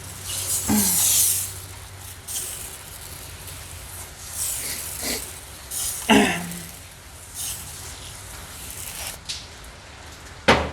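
Spray bottle squirting Super Clean degreaser in several short hissing bursts, the longest about half a second in. A few short falling squeaks come between the sprays, the loudest about six seconds in, and there is a sharp click near the end.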